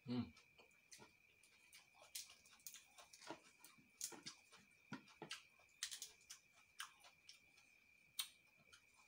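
Mouth noises of someone chewing raw lettuce leaves: a string of irregular crisp clicks and smacks, with a brief hum of a voice just after the start. A faint steady high whine sits underneath.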